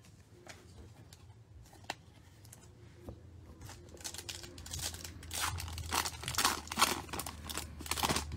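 A foil trading-card pack wrapper being torn open and crinkled by hand. A few light ticks come first, then from about three and a half seconds in the crinkling and tearing grow louder.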